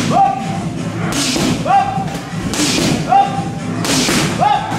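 Muay Thai strikes landing with sharp thuds about every second and a half. Each comes with a short rising shout, over background music.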